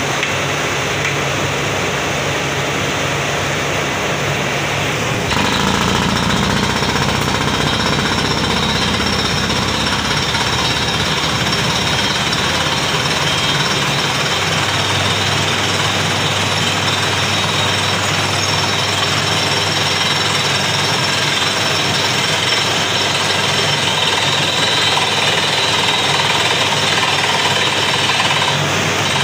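Borewell drilling rig hammering steadily, a rapid continuous percussion as the bit works down into the ground; it gets louder about five seconds in.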